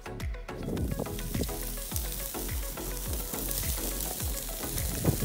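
Meat sizzling on a grill over open flames, the hiss setting in about half a second in, under background music with a steady drum beat of about two thumps a second.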